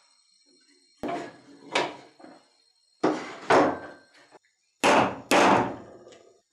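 Hammer blows on a small steel bench anvil, loud knocks in three pairs about two seconds apart, each ringing out briefly.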